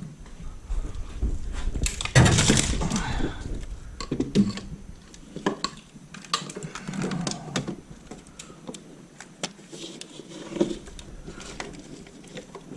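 Plastic wiring-harness connectors being handled and plugged into the engine computer's connectors: scattered sharp clicks, with a louder stretch of clattering and rustling about two seconds in.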